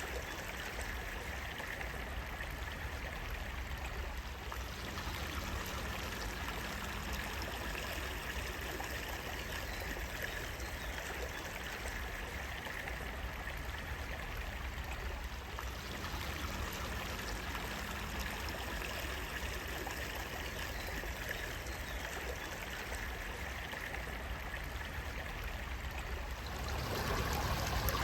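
Running water flowing steadily, getting somewhat louder near the end.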